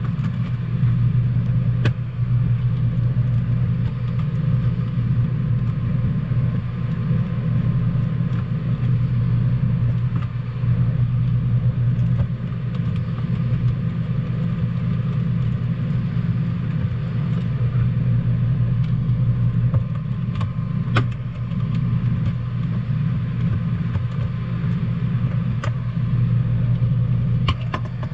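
A steady low mechanical hum, with a few light clicks scattered through it as small screws are unscrewed from the plastic back of a 12 V fan unit.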